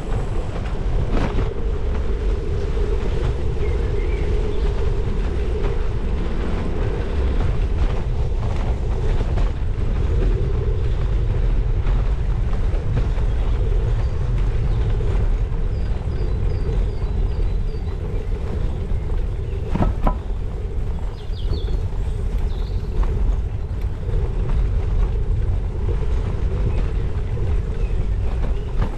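Steady low rumble of wind on the microphone mixed with bicycle tyres rolling over a wet tarmac path, with scattered knocks from bumps and a sharper knock about twenty seconds in.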